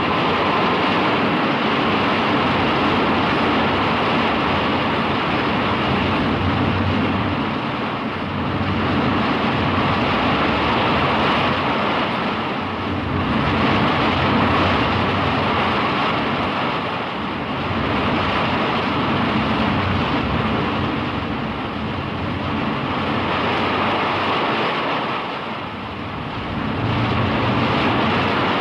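Mothra sound effect from the 1960s Showa films: a loud, sustained rushing, wind-like roar that swells and eases about every four seconds.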